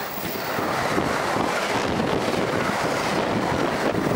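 Amtrak passenger coaches rushing past at track speed: a steady rush of wheel and air noise, with the wind of the train's wake buffeting the microphone after the last car has gone.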